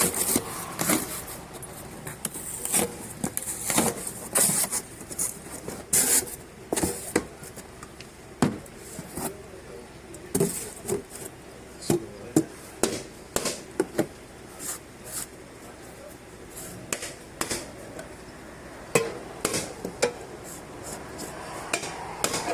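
Irregular clicks, taps and knocks of hand tools and parts being handled while working on a car, some a few seconds apart and some in quick runs.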